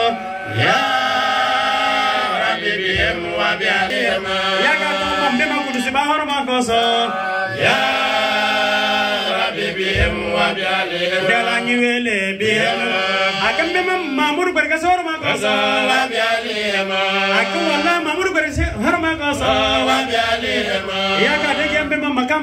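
Group of men chanting Arabic devotional verses together in a slow, drawn-out melody, amplified through handheld microphones. The chant runs without pause.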